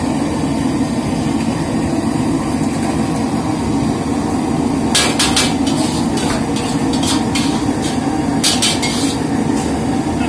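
Steady rush of a gas wok burner; from about halfway, a metal ladle knocks and scrapes against a steel wok in quick clusters of clanks, around the middle and again near the end.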